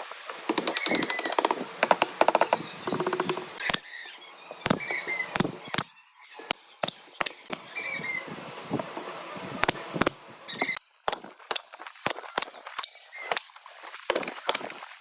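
Woodworking with tools striking wood. It starts with a few seconds of fast rattling strokes, then irregular sharp knocks, roughly two a second. Bird chirps come now and then in the background.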